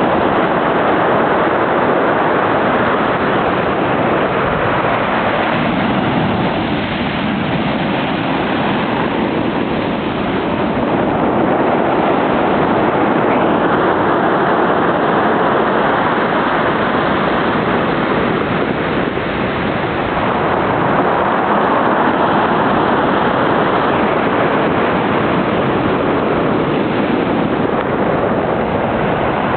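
Pacific surf breaking on the shore: a steady rushing roar of waves that swells and eases a little.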